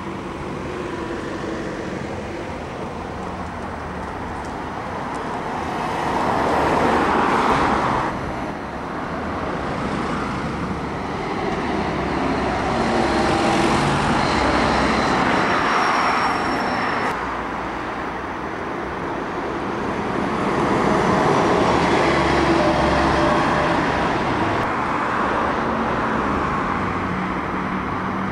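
Road traffic: cars, vans and buses passing one after another, with engines and tyre noise rising and falling in three louder pass-bys, one of them a van passing close about halfway through.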